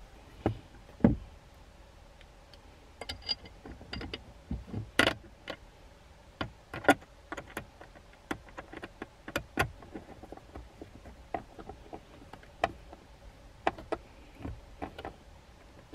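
Irregular light clicks and knocks of a plastic dash mount rail and its screws being handled and set into place on a Jeep Wrangler JL dashboard, with a screwdriver knocking against the parts now and then.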